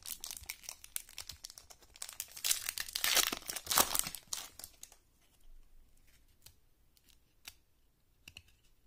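Foil wrapper of a 1997 Playoff Contenders football card pack being torn open and crinkled, loudest about three seconds in. After about five seconds the wrapper goes quiet, leaving only a few faint clicks as the cards are handled.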